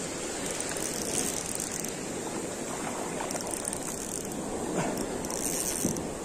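Steady wash of surf breaking on the shore, with a Shimano Sahara spinning reel being cranked in two short spells of high whirring, one near the start and one near the end.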